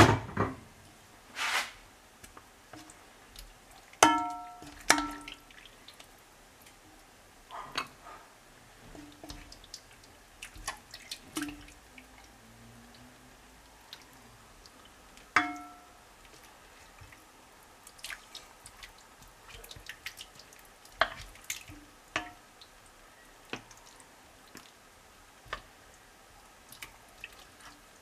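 Serving spoons clinking, knocking and scraping against a ceramic bowl and a pot while stew is ladled over couscous. The clicks and knocks are scattered, and a few of them ring briefly like struck crockery.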